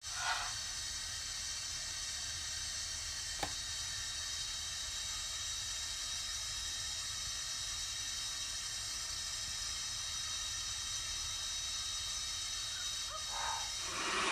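Hair dryer running steadily: an even hiss of blown air with a high motor whine. There is a single sharp click about three and a half seconds in.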